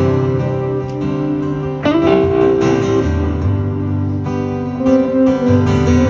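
Electric guitar, a yellow Telecaster-style solid body, playing an instrumental passage of sustained notes over a low bass part, with a note bent upward about two seconds in.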